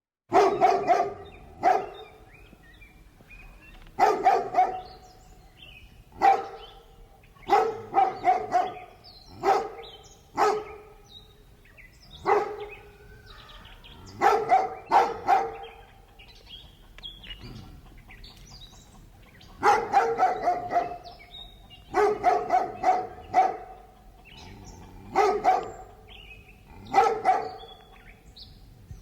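Large dog barking in bouts of one to several barks, with pauses of a second or more between bouts. Birds chirp faintly in the gaps.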